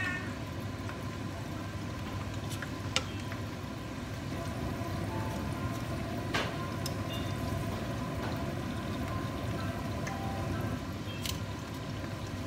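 Spring rolls deep-frying in a pan of hot oil: a steady sizzle, with a few sharp clicks of metal tongs as they are turned.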